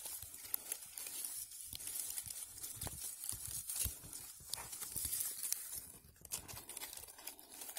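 Irregular crackling and rustling of dry forest-floor litter and pine cones as they are stepped on and gathered by hand.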